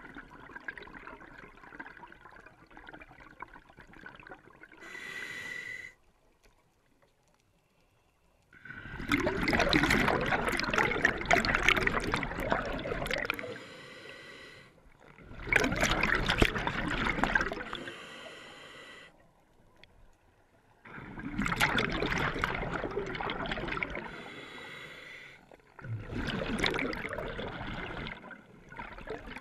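Scuba diver breathing through a regulator underwater: four long rushes of exhaled bubbles, about six seconds apart, with quieter pauses for the inhale between them.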